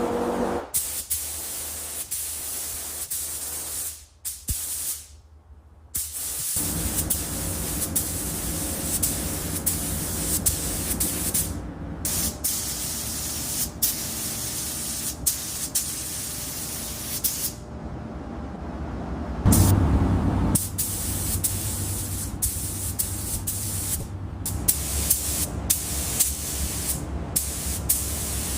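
Spraying hiss from a spray nozzle, cutting off and starting again several times, over a low steady hum.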